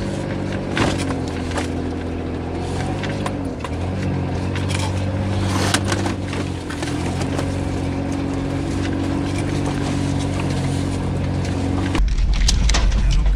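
Engine and drivetrain of an off-road 4x4 heard from inside the cabin while driving a snowy track: a steady hum whose pitch dips and rises a few times as the engine speed changes, with a few knocks from the bumpy ride. Near the end it switches suddenly to a louder, deeper rumble of the vehicle in motion.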